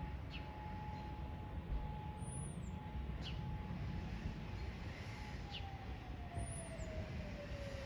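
Federal Signal Modulator 4016 outdoor siren sounding an emergency call. It holds one steady tone, then from about five seconds in winds down, its pitch falling slowly.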